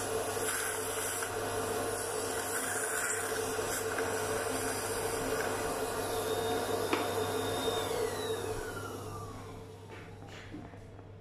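Dental suction unit running steadily with a hum, with a single click about seven seconds in; about eight seconds in it is switched off, and its motor tone falls in pitch as it winds down.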